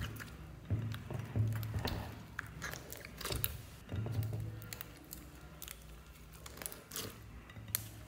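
Clear slime and soft clay slime being squeezed and pressed by hand, with sticky crackles and small pops, over background music.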